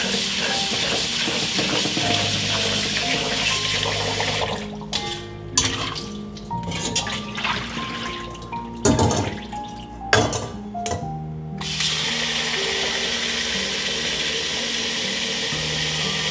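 Kitchen tap running into a stainless steel bowl of basmati rice being washed. About four seconds in the flow stops, and the bowl and strainer clink sharply a few times as the washing water is tipped out. About twelve seconds in the tap runs into the bowl again. Soft background music throughout.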